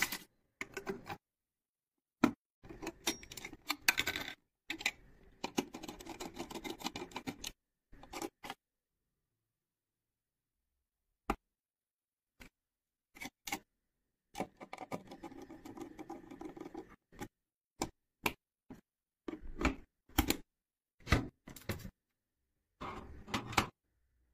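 Hands handling PC parts: scattered sharp clicks and knocks of plastic and metal, with two longer spells of rubbing and scraping, a few seconds in and again about halfway through.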